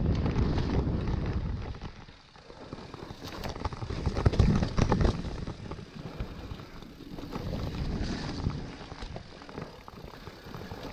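Mountain bike riding down a dirt trail: tyres on dirt, the bike rattling and knocking over bumps, and wind on the camera microphone, with a brief lull about two seconds in and a hard jolt between four and five seconds in.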